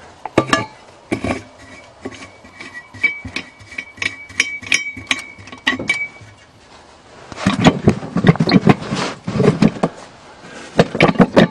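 Metal clinks and knocks from parts being handled, with a thin squeak from about three to six seconds in, then a louder stretch of rustling and scraping near the end.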